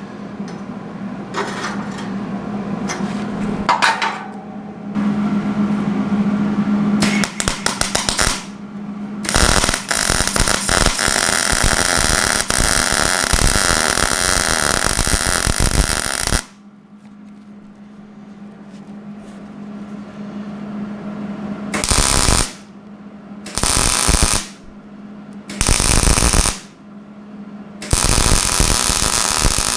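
MIG welder running on steel tubing: one long crackling weld of about seven seconds, then several short welds of about a second each. A steady hum and scattered clicks sound between the welds.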